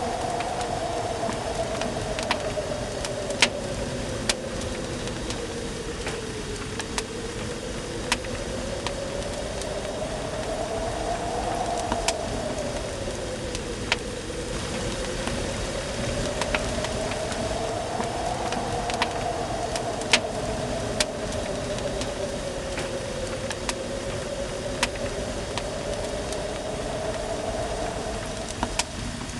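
Wood fire crackling: a steady hiss broken by sharp pops every second or two. Underneath runs a steady tone that slowly rises and falls over several seconds.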